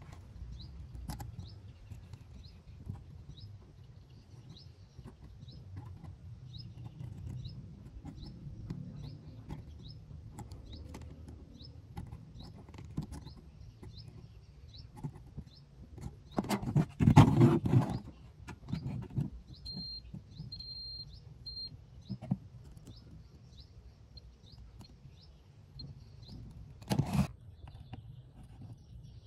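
A bird chirping over and over, a short high note about one and a half times a second, over a steady low background rumble. A loud burst of handling noise comes just past the middle, with three short high beeps soon after and a single knock near the end.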